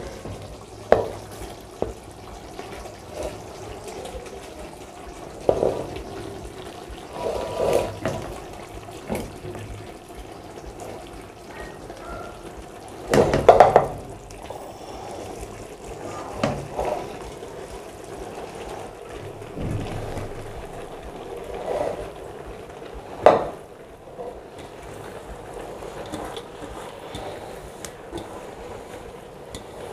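Boiled rice being tipped from a steel tray into an aluminium cooking pot, layered over the curry: a soft sliding rush of rice with scattered knocks and scrapes of the tray's metal rim against the pot. The loudest knock comes about halfway through, with a sharp one later.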